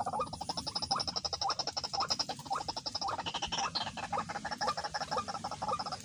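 A fast, continuous run of croaking animal calls, with a higher pulsing note running alongside.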